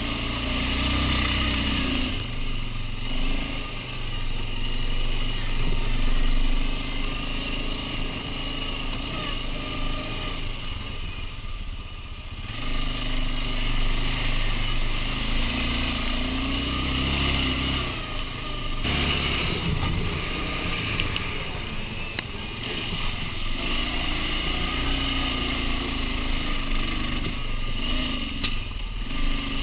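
ATV engine running under way, its pitch rising and falling as the throttle is worked in several swells.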